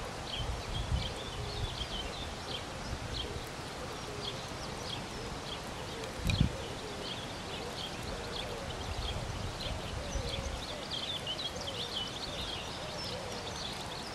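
Outdoor ambience of small birds chirping and twittering in short high calls throughout, with fainter wavering calls lower down. Wind buffets the microphone in low gusts, the strongest about six seconds in.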